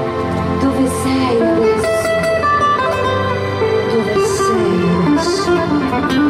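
Acoustic guitar played solo, a melody of plucked notes and chords.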